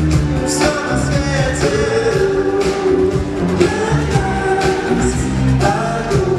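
Music: a song with singing over an instrumental backing with a steady beat.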